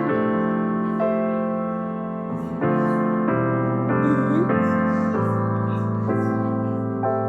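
Background music: electric piano playing sustained chords that change every second or so.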